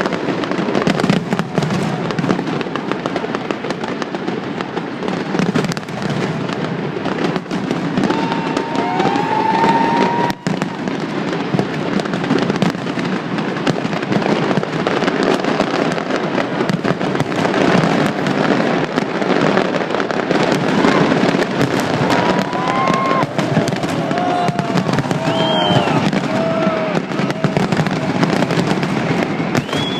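Fireworks display: a continuous dense crackle of bursting fireworks with no pause, with a few short sliding whistle-like tones over it now and then.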